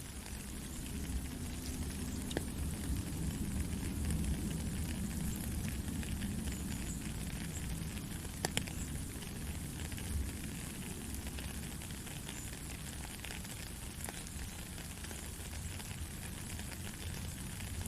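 Steady rain falling, a constant hiss with scattered sharp drop ticks and a low rumble underneath.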